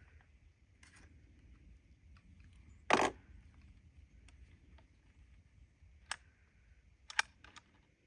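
Metallic clicks and clacks from the action of a Winchester Model 77 .22 LR semi-automatic rifle as it is worked by hand. There is one loud clack about three seconds in and a few lighter clicks near the end.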